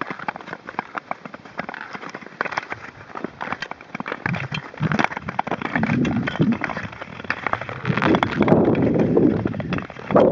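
Skate blades scraping and gliding over thin, clear natural ice, with a dense run of sharp clicks and crackles. Louder rushing scrapes come in two stretches, about halfway through and again near the end.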